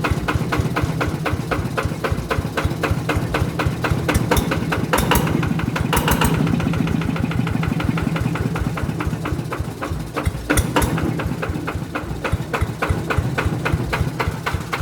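Yanmar 120 DI single-cylinder diesel engine running at a steady idle, an engine that had sat unused for over two years, with a rapid, even diesel knock. A few sharper metallic clicks stand out around four to six seconds in and again near ten and a half seconds.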